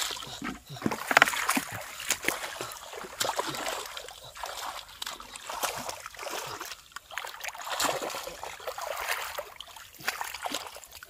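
Hands splashing and sloshing through shallow, muddy paddy water among rice plants while groping for fish, in irregular bursts.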